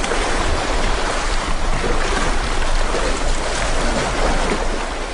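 Sea water splashing and churning as a group of southern right whales roll together at the surface, over a steady low rumble.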